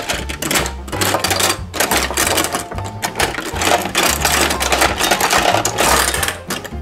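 Many small plastic toy figures clattering against each other and a plastic toy garage in a fast, dense rattle as they are pushed in and spill down its ramp. Background music with a low bass line plays underneath.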